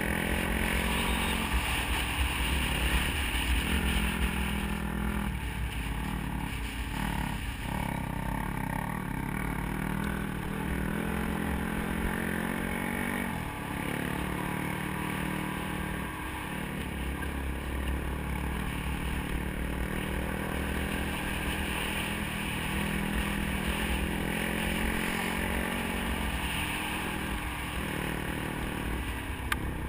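Dirt bike engine running under way on a gravel road. Its note steps up and down, with brief drops several times as the throttle is rolled off and back on.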